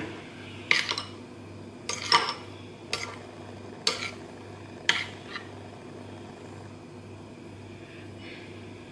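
Metal spoon clinking and scraping against a ceramic bowl, about seven short knocks over the first five seconds, as florets are lifted out of an egg-and-spice mixture.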